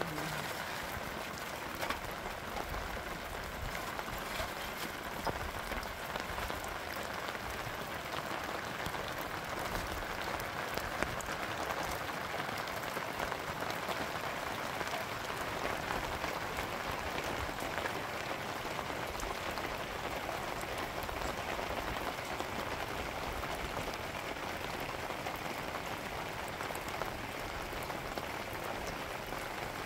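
Steady rain falling: a dense, even patter of many drops with no let-up.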